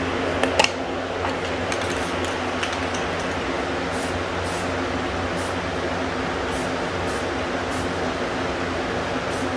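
3-speed box fan running steadily on its highest setting as a spray booth's exhaust. A couple of sharp clicks come near the start as the cap comes off a spray paint can. From about four seconds in there are several short hisses of spray paint.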